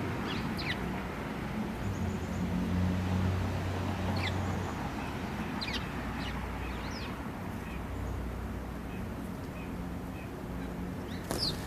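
House sparrows giving scattered short chirps, each dropping quickly in pitch: a few near the start, a cluster in the middle and one near the end. Under them runs a steady low rumble.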